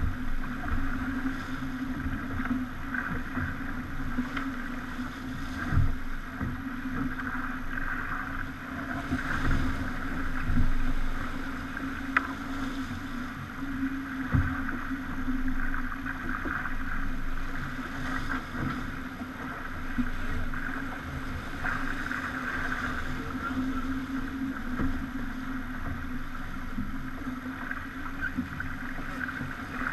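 Pogo 30 sailing yacht under way at sea: water rushing along and slapping against the hull under a steady low hum, with a few dull thumps.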